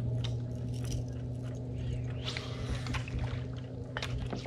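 A boat motor running steadily at low speed, a low even hum, with scattered sharp clicks and light knocks over it.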